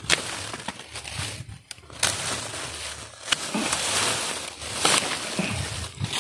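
Dry vines, twigs and leaves rustling and crackling as tangled brush is pushed aside and cut with hand pruning shears, with a few sharp snaps: one at the start, one about two seconds in, and one near five seconds.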